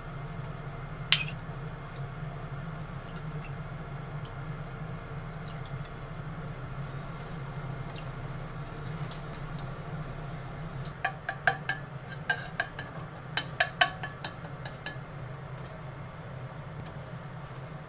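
Cooking handling sounds: a metal measuring spoon and utensils clinking on a frying pan and seasoning containers as liquid seasonings are spooned in, with a sharp clink about a second in and a run of short ringing clinks past the middle. A steady low hum runs underneath.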